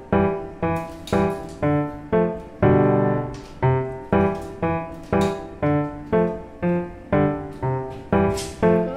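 Background piano music: single notes struck about twice a second, each fading away, with a longer held chord about three seconds in.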